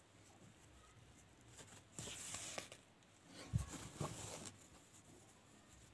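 Faint rustling of cloth being handled and folded by hand, in short spells about two and four seconds in, with a soft knock between them.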